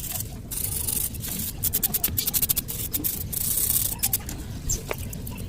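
A brush scrubbing a soapy motorcycle cylinder block. It makes a run of rapid scratchy strokes that come thickest in the middle, over a steady wet hiss.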